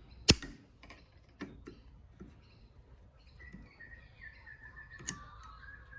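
A sharp metallic snap, then scattered light clicks and taps of metal tools on the fork parts as the circlip is worked off with circlip pliers. From about halfway, a faint thin chirping tone runs in the background.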